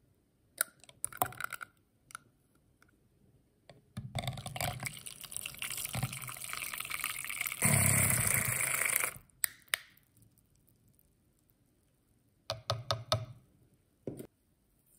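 A spoon taps a few times against a plastic measuring jug. Then a hand-held battery milk frother whirs in a milk, butter, yeast and egg mixture for about five seconds, churning it to foam. It gets louder for the last second or so and stops suddenly, followed by a quick run of clicks and one knock.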